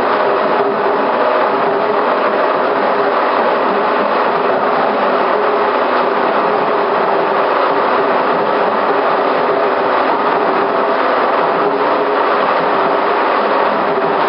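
Sawmill machinery running steadily: a continuous loud mechanical noise with a faint steady hum underneath.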